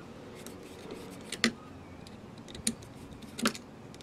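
Three sharp metallic clicks, spaced about a second apart, as fingers work the metal hose clamp on a 12-volt oil extractor pump's outlet hose, over a low steady hum.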